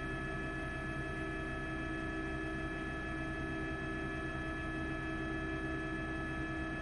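A steady drone: several fixed tones held over a low rumble and hiss, unchanging throughout, with no knocks or breaks.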